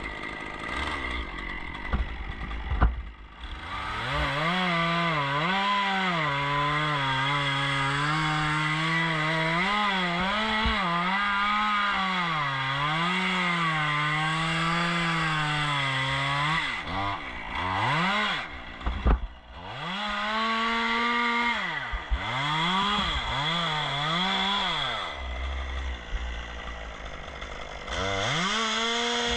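Gas chainsaw running at high revs with a wavering pitch, cutting a dead fir tree. After a couple of knocks in the first few seconds it revs up. Past the middle it drops back and is blipped up and down several times, then revs up again near the end.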